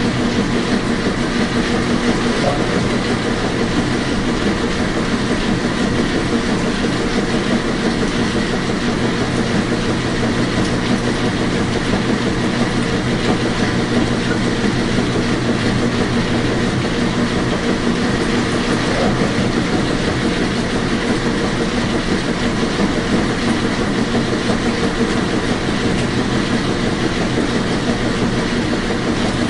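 Washing machine running: a steady, unbroken mechanical hum and rush with a constant low drone, unchanging throughout.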